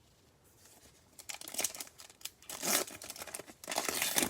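A trading-card pack's plastic wrapper being torn open and crinkled by hand. It starts after about a second of quiet and keeps up in irregular crackles that grow louder near the end.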